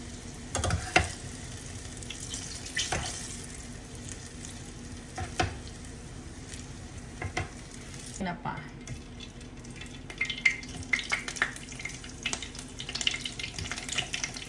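Hot oil sizzling in a frying pan as pieces of fried eggplant are lifted out with metal tongs, with a few sharp clicks of the tongs against the pan and plate. From about ten seconds in the sizzle turns to a busy crackle and spatter as smoked fish (tinapa) goes into the oil.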